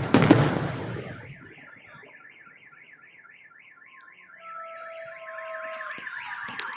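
A last firework bang right at the start, its rumble dying away over a second or so, then a car alarm warbling up and down about three times a second. Steady alarm tones join it about four seconds in.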